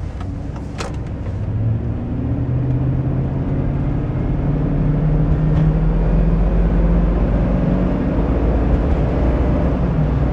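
2004 Chevy Avalanche's 5.3-litre V8 and road noise heard from inside the cab as the truck accelerates, the engine note rising and growing louder over the first few seconds and then holding steady. There are a couple of sharp clicks just under a second in.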